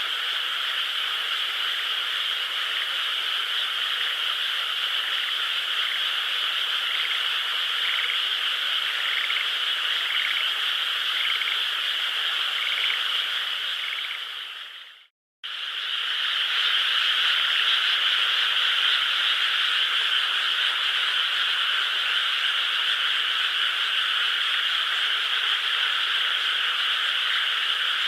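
A dense, steady chorus of many frogs calling from a flooded rice paddy. About halfway through, the sound cuts out for a split second and comes straight back.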